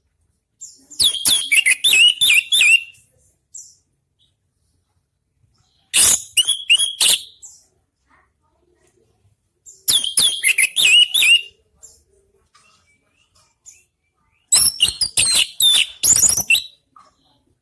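Orange-headed thrush singing: four loud phrases of rapid, high, varied notes, each one to two seconds long, a few seconds apart.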